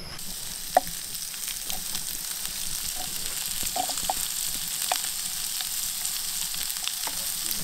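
Walu (Spanish mackerel) pieces sizzling in a frying pan set on campfire coals: a steady frying hiss with a few faint clicks and pops.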